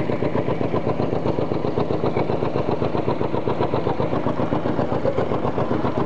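Locomotive's diesel engine idling with a steady, rapid pulsing beat.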